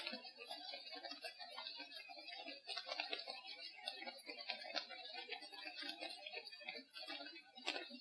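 Dense, irregular ticking and crackling in a forest recording with rain easing off. The uploader takes it for Bigfoots chewing sticks and stripping bark.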